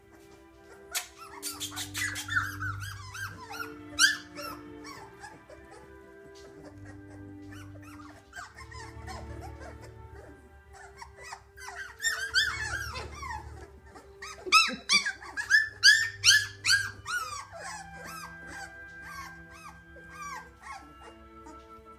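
Two-week-old Labrador puppies squealing and whimpering in high, sliding cries, with their mother away from the pen. The cries come in clusters near the start and again through the second half, over soft background music.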